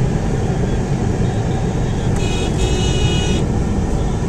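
Engine and road noise inside a slowly moving car, a steady low rumble. About two seconds in, a high two-part tone sounds, one short and one longer, lasting about a second in all.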